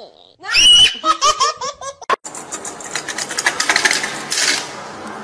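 A man laughing heartily in rapid, rhythmic bursts, cut off abruptly about two seconds in; after that a rough hiss with fast clicks.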